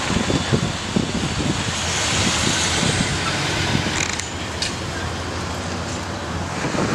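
Street traffic going by, with a vehicle passing close that swells and fades about two to three seconds in. Scattered low thumps run under it, and there are a couple of sharp clicks a little past the middle.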